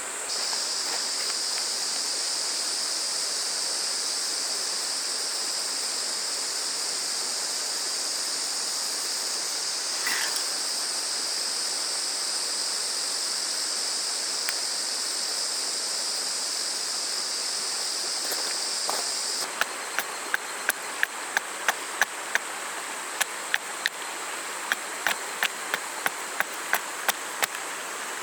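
A steady chorus of cicadas over the rush of a small stream. About two-thirds of the way through, the chorus changes abruptly and a series of sharp knocks comes in, roughly one or two a second.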